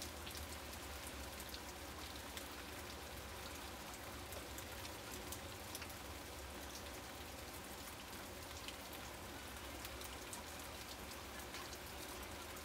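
Steady rain, heavy enough to flood the yard and street, falling on grass and ground, with many close drops ticking through the hiss.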